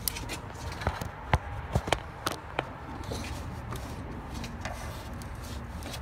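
A quick series of sharp plastic-and-metal clicks and knocks in the first couple of seconds as a fuel injector's wiring connector is unclipped and the fuel rail with its injectors is pulled up out of a Chevy Cobalt 2.2 Ecotec engine. Then only a steady low background hum.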